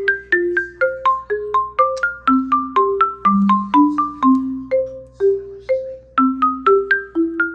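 Background music: a light, bouncy melody of struck mallet-percussion notes in a marimba-like tone over a bass line, about two to four notes a second.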